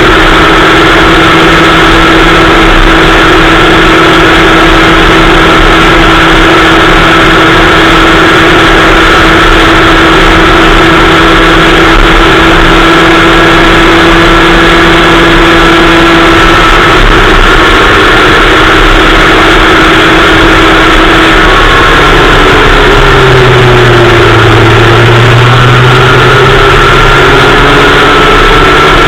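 Kid kart engine heard from an onboard camera, loud and held at a steady pitch at a constant throttle. About two-thirds of the way in, the note drops and climbs again as the kart slows and picks up speed.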